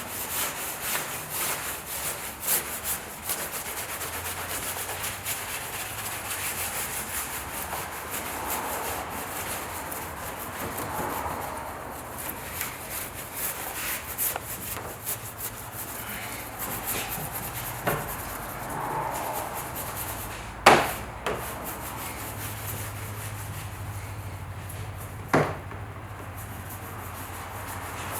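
Clay bar being rubbed back and forth over lubricated car paint, a steady scrubbing with small ticks, as the clay picks dirt off the paint. A few sharp knocks stand out, the loudest about three-quarters of the way through and another near the end.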